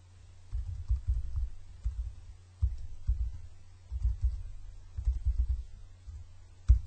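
Computer keyboard typing, heard as dull low thumps in quick clusters over a steady low hum, with one sharper keystroke near the end.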